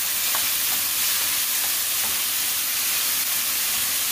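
Diced tomato and onion sizzling steadily in hot oil in a skillet, stirred with a wooden spoon that scrapes the pan lightly a few times in the first couple of seconds.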